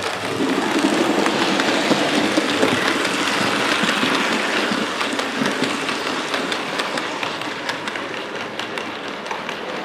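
Model train running on the layout track, its wheels clicking and rattling over the rail joints. It grows louder about half a second in, then slowly fades as it moves away.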